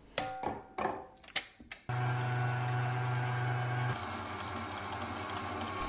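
A few metallic clinks and knocks against a steel mixing bowl. About two seconds in, a Smeg stand mixer starts up and runs steadily with its wire whisk, creaming butter and sugar. Its hum becomes a little quieter about four seconds in.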